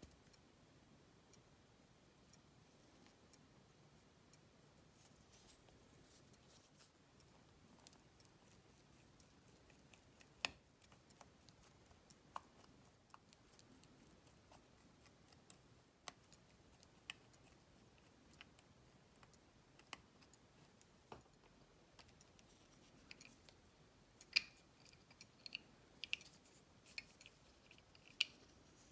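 Small watchmaking tools clicking and tapping on a watch's metal parts at the bench: faint, scattered clicks, coming more often near the end, some with a short ring.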